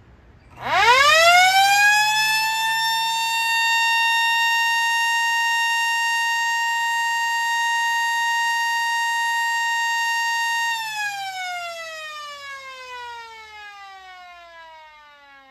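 Air raid (civil defense) siren sounding a short alert on its weekly test: it winds up quickly to one steady high tone, holds it for about ten seconds, then winds down, its pitch falling steadily.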